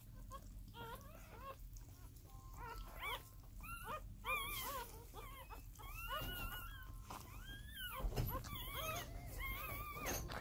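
Newborn corgi puppies squeaking and crying in a string of short, high calls that rise and fall in pitch.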